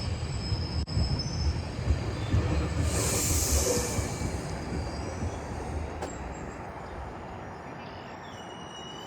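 GO Transit commuter train rolling slowly into the station and coming to a stop. Its low rumble fades away, with a burst of high hiss about three seconds in and faint high-pitched wheel or brake squeals near the end.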